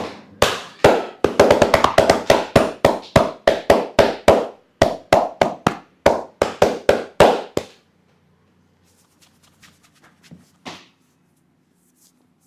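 Hand slaps of an Indian barber's percussive massage (champi), struck in a fast even rhythm of about four a second, then stopping about eight seconds in.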